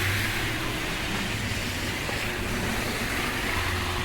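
Street traffic: a motor vehicle's low engine hum with a steady rushing noise.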